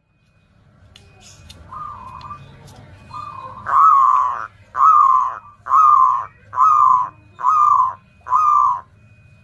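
Zebra dove (perkutut) giving its 'ngoar' or 'ngayer' call: two soft notes, then six loud wavering notes of under a second each, about a second apart. It is a lure call meant to rouse the aggression and breeding urge of wild zebra doves so that they come in.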